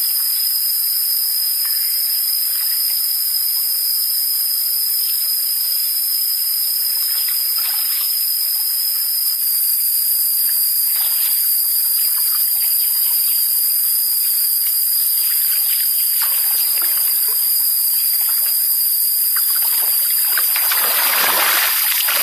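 Steady shrill drone of forest insects, one high tone over a hiss, with water splashing and sloshing here and there as a man wades and works a net in a shallow stream; the splashing grows heavier near the end.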